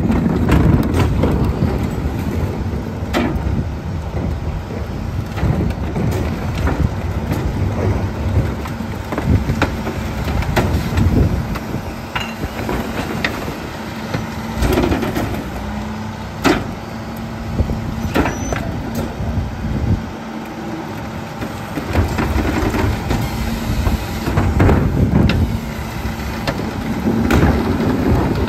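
Rear-loading McNeilus garbage truck running at the curb while recycling carts are tipped into its hopper by the hydraulic cart tipper, with repeated knocks and clatter of the plastic carts and the loose recyclables dropping in. A steady hum sets in about halfway through.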